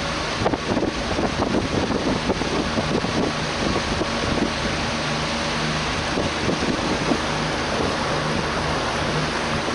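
Boat motor running steadily at cruising speed, with water rushing and splashing along the hull. The rushing is gustier for the first few seconds, then evens out.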